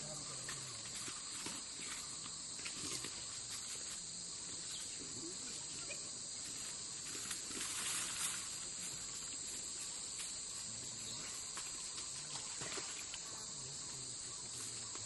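Steady, high-pitched insect chorus of crickets or cicadas, with faint scattered clicks and rustles.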